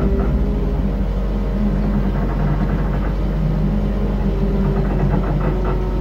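Steady low rumble and hum inside a submarine dark-ride vehicle's cabin, with held tones that come and go over it.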